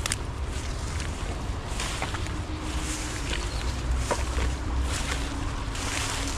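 Footsteps pushing through dense low weeds and grass, leaves swishing at each step, with wind rumbling on the microphone.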